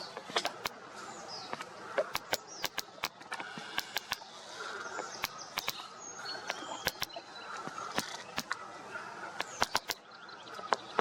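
Small birds chirping and twittering in short high notes, with many sharp, irregular clicks throughout.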